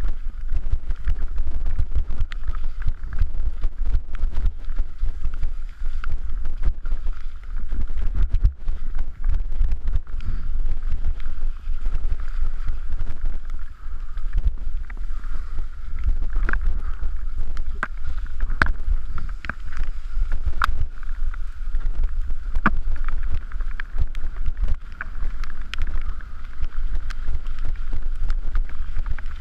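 Mountain bike descending a rocky, gravelly trail at speed: wind buffeting the microphone, with frequent rattles, knocks and clicks from the bike as its tyres and frame take the rocks.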